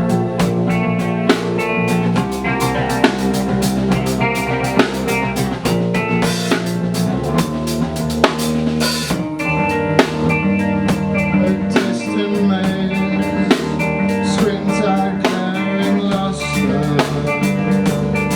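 A band playing an instrumental passage: drum kit keeping a steady beat with a strong accent about every two seconds, under held electric guitar and bass notes.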